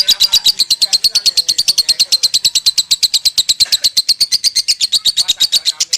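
Lovebird singing a long, unbroken chattering trill of sharp, shrill notes at about ten a second: the 'konslet' style of continuous kekean valued in Indonesian lovebird contests.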